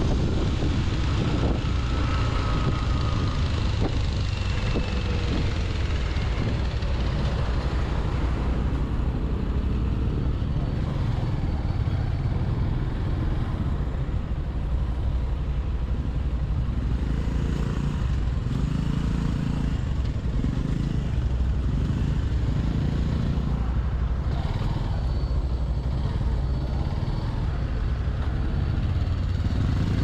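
Motorcycle engine running with wind rushing past at road speed, easing to a lower, steadier engine sound about a third of the way in as the bike slows to a crawl in queued traffic.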